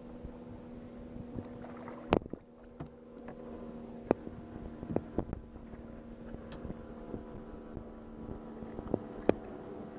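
A boat motor hums steadily while sharp knocks and clicks land now and then, a few seconds apart, in the fishing boat.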